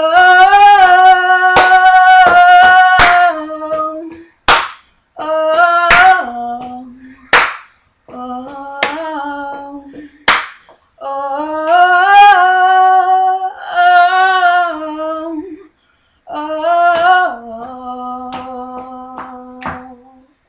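A woman sings unaccompanied in long, wordless held notes, in phrases with silent gaps between them. Hand claps come in a quick run early on, then singly about every second and a half.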